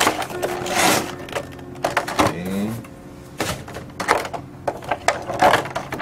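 Paper and clear plastic packaging being handled during unboxing: irregular rustling, crinkling and light knocks of the paper manual and plastic tray.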